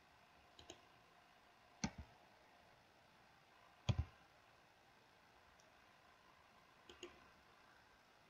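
Faint computer mouse clicks, each a quick press-and-release pair, heard four times a second or two apart over quiet room noise.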